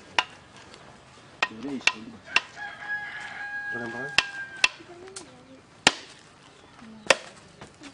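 Sharp knocks of a machete blade striking a husked coconut, about ten irregularly spaced blows, chopping a small hatch in the top to open it. A rooster crows in the background from about three seconds in.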